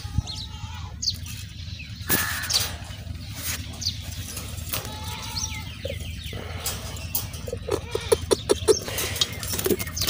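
White wire birdcage clicking and rattling as its door is opened and a hand works inside, with pearl millet seed poured by hand into a clay pot. Quick small ticks come near the end.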